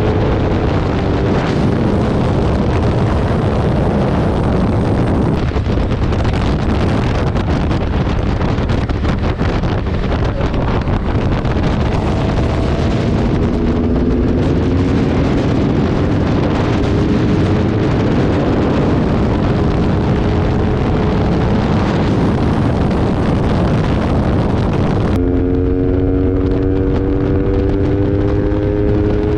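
Motorcycle ridden at speed, with heavy wind noise on the microphone over the engine, whose note climbs slowly as the bike accelerates. About 25 seconds in the wind noise drops away abruptly and the engine's rising note comes through clearly.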